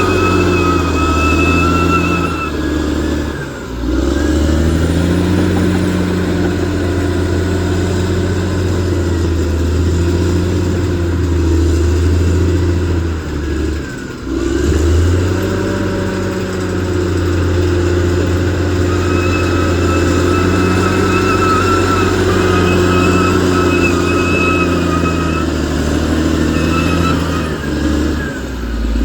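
Bulldozer's diesel engine running under load as it pushes and levels soil, its drone easing off briefly three times as the machine changes direction. A high steady whine comes and goes over the engine.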